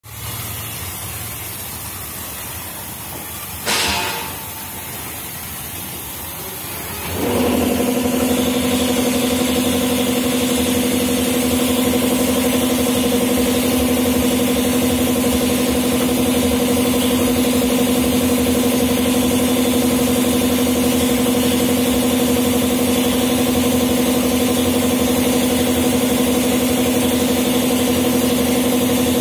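Compressed-air foam gun hissing as it sprays snow foam onto a car, with a short loud burst of air about four seconds in. About seven seconds in, a machine's motor starts and runs with a steady hum under the hiss.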